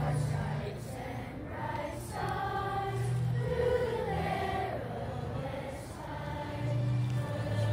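A group of schoolchildren singing a song together, with long held notes.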